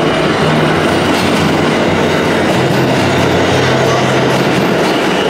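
New York City subway train running past along the station platform: a loud, steady rumble of cars and wheels on the rails with a low motor hum.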